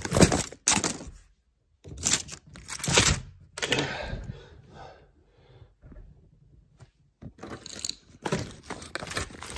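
Handling noise from a phone held close against clothing and skin: rustling, scraping and a few knocks in irregular spells with short quiet gaps.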